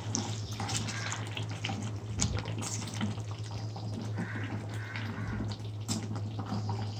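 Thick tamarind curry (kara kuzhambu) bubbling in a pan on the stove, with irregular plops and pops as bubbles burst. A steady low hum sits underneath.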